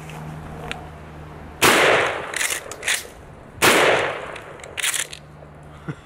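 Ithaca Model 37 12-gauge pump-action shotgun firing two shots about two seconds apart. Each shot is followed by sharp clacks as the pump is racked and the spent shell is ejected out the bottom.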